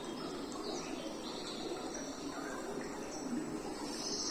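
Recorded nature soundscape playing: insects trilling steadily, with a few bird chirps.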